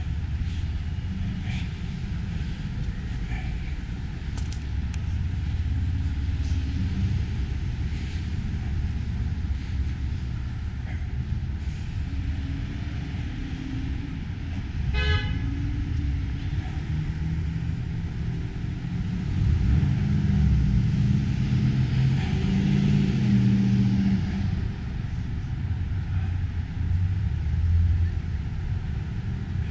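Street traffic: cars driving past with a steady low rumble, one passing loudest a little past the middle. A short car horn toot sounds about halfway through.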